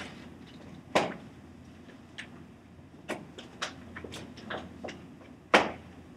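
Frame ribs of a collapsible patient isolation pod being joined end to end, with sharp clicks and knocks as the connectors are pushed together, over the rustle of the pod's fabric and plastic sheeting. The two loudest clicks come about a second in and near the end.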